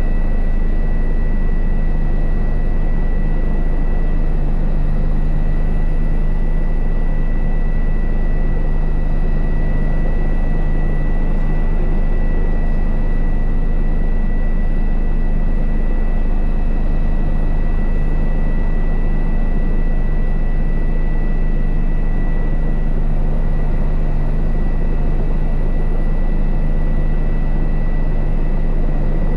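Twin-engine turbine helicopter running steadily as it taxis slowly along the runway, heard from inside the cockpit: a constant low rotor drone with a steady high turbine whine over it.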